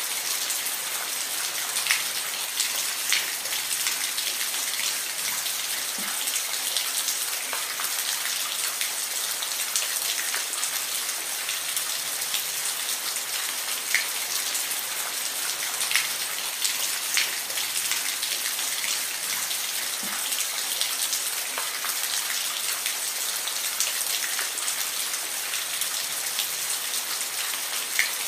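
Steady rain falling, a dense high hiss with louder single drops ticking here and there.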